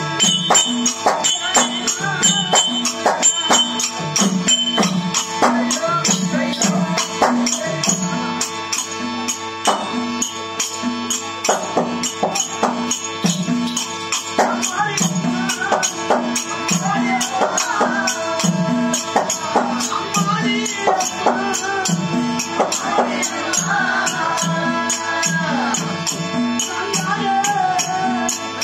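Live therukoothu street-theatre accompaniment: a harmonium holding a steady drone, a drum beating a regular rhythm about twice a second, and small hand cymbals jingling throughout. A voice sings over it from about halfway through.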